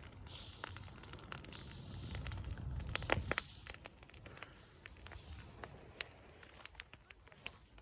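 Straw and leaves burning, crackling with irregular sharp pops and snaps, over a low rumble that swells about two to three seconds in.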